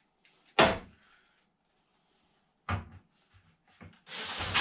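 Two sharp knocks, then near the end a cordless drill-driver starts up and runs, driving a screw to fix the integrated fridge to the kitchen unit.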